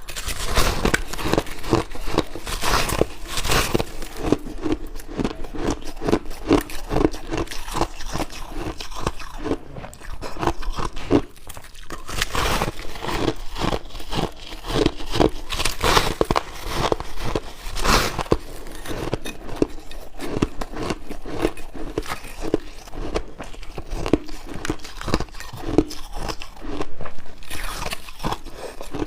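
A person biting and chewing chunks of white ice: dense, irregular crunching and crackling, with a brief pause about eleven seconds in.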